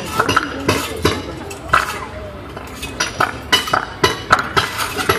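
Hammers and chisels clinking on stone, sharp metallic strikes at an irregular pace of about two or three a second: stonemasons' work starting on a building, played as a sound effect over the show's loudspeakers.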